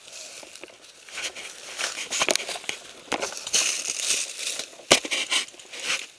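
Close rustling and crinkling of clothing and tactical gear rubbing and shifting against the camera as the player moves in cover, in uneven bursts. A single sharp click about five seconds in.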